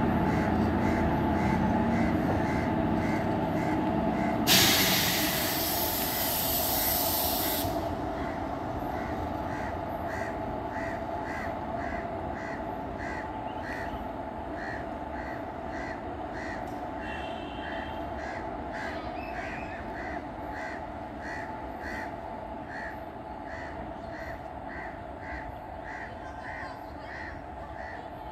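Indian Railways WAG-7 electric locomotive and loaded container wagons rolling slowly, the running noise fading steadily as the train draws away. About four and a half seconds in comes a loud hiss of air lasting about three seconds.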